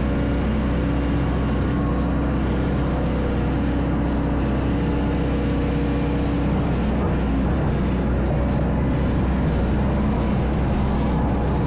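An engine running steadily with an even drone, a held mid tone in it fading out about halfway through.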